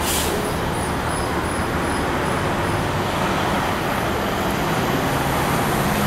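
Steady city street traffic noise, with a brief hiss right at the start.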